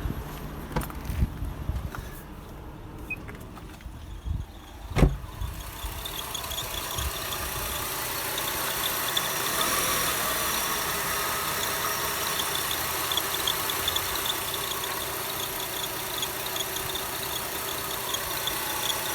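Subaru EZ30 flat-six engine: a few knocks, a loud thump about five seconds in, then the engine running steadily. Over it is a high, pulsing whistle from the accessory drive belt, the periodic belt whistle the owner is recording.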